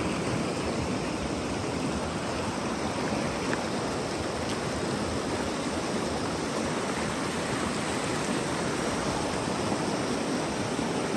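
River whitewater rushing steadily over rocks in a fast, turbulent channel.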